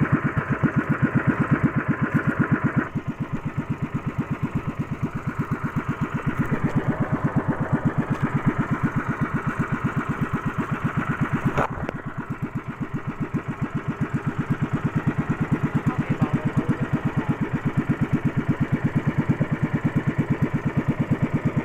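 Small inboard engine of a motorized outrigger boat (bangka) running steadily underway, a rapid, even putt-putt pulse.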